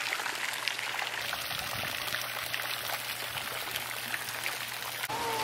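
Steady splashing of water from a swimming pool's fountain jets, with a low steady hum underneath.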